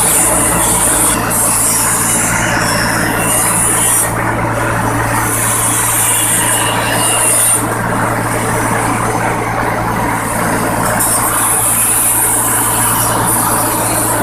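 Rice milling machine running steadily: a constant low machine hum under a hiss that rises and falls every second or two.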